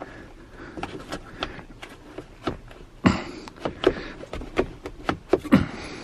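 Plastic seat side trim being tugged and pried by hand at its clip: irregular clicks and knocks of plastic, with a louder knock about three seconds in and another near the end.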